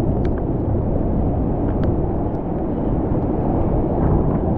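Hurricane Zeta's wind buffeting the camera's microphone: a loud, steady low rumble, with a few sharp ticks of rain and spray striking the camera.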